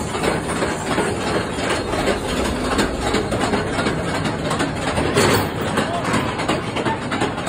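Calico Mine Ride train cars rumbling and clattering along the track at a steady pace, with a dense rattle of many small clacks.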